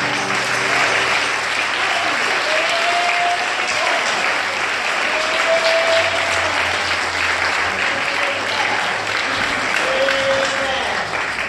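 Church congregation applauding steadily, with a few voices calling out over the clapping.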